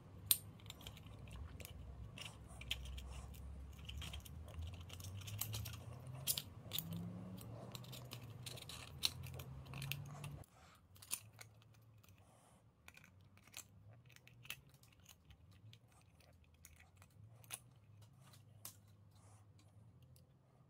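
Handling noises of small metal parts and nylon trimmer line: scattered light clicks, taps and rubbing as a trimmer-head spool is fitted into a metal oil filter shell. A low hum sits under the first half and cuts off suddenly about ten seconds in.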